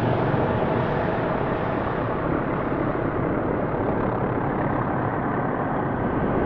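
Steady, dense rumbling drone of an ambient soundtrack, with a few faint held tones.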